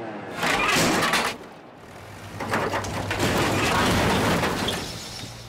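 Cartoon sound effects of a tracked excavator smashing a parked car with its bucket: a crash about half a second in and a longer crashing stretch from about two and a half seconds, over the steady hum of the excavator's engine.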